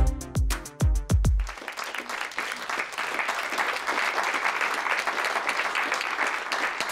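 A short piece of music ends in the first second and a half with a few falling bass notes, then a studio audience applauds steadily.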